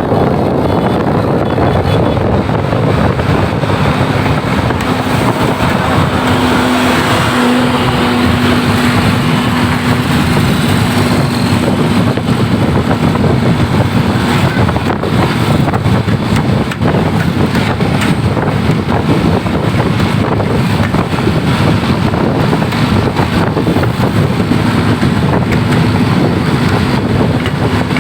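Loud, steady road-vehicle noise with wind buffeting the microphone. A steady low hum holds for about ten seconds partway through.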